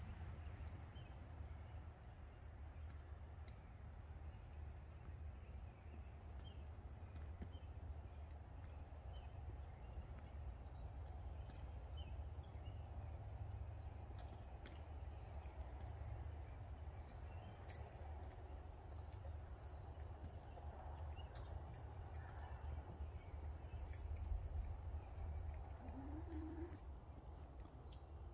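Backyard hens foraging, with a short low cluck near the end, over a steady low rumble and a constant thin, high-pitched chirping.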